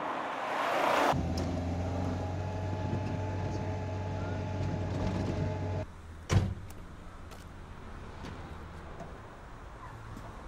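A motor vehicle running steadily with a low hum, preceded by a rising hiss. It cuts off about six seconds in, and a single loud thump follows half a second later.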